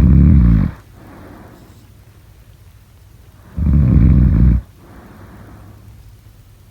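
A sleeping person snoring: two loud, rattling snores, one right at the start and one about three and a half seconds in, each followed by a softer breath.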